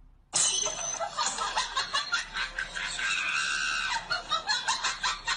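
A person laughing hard in quick gasping bursts, with shrieks mixed in, starting suddenly about a third of a second in.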